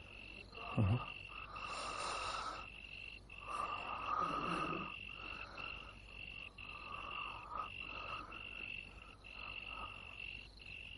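Night ambience: crickets chirping in a steady high trill broken by short gaps, with frogs croaking on and off beneath. A single low thump sounds about a second in.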